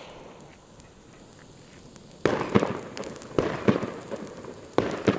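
A Pyro Union P1 firecracker's fuse hissing faintly. About two seconds in, its pre-burn charge bursts into a loud, spraying hiss of sparks with several sharp cracks.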